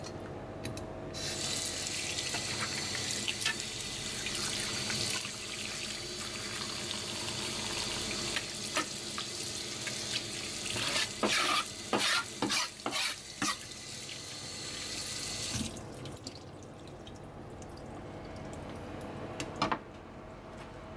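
Kitchen tap running into a stainless-steel sink while a piece of sea cucumber is rinsed under the stream by hand, with several louder splashes and knocks in the middle. The water shuts off a few seconds before the end, leaving faint handling sounds and a single knock.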